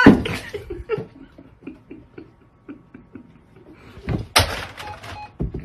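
A loud thump, a few soft taps, then about four seconds in a sharp clatter and knocks: a framed picture rattling against the wall as a cat paws at it.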